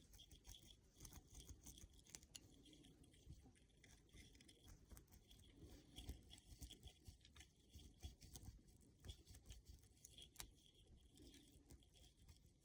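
Faint, irregular scratchy crackles of a crochet hook being worked through a dreadlock, pulling stray hairs into the centre of the dread.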